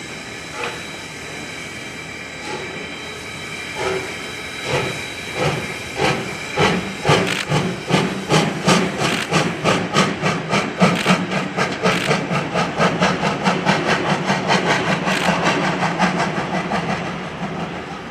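C57 steam locomotive starting off and accelerating, its exhaust beat spaced out at first and quickening into a rapid, even chuffing, over a steady hiss of steam. The beat fades near the end.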